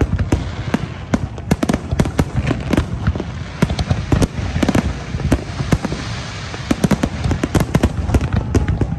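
A large aerial fireworks display, with many shells bursting in quick, irregular succession at several bangs a second over a continuous crackling hiss.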